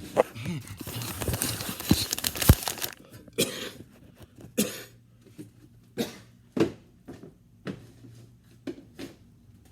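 Rustling and handling noise for about three seconds, then a series of separate soft knocks, roughly one a second.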